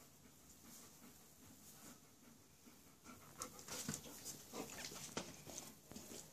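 A dog panting softly in short, uneven breaths that begin about three seconds in, after near silence.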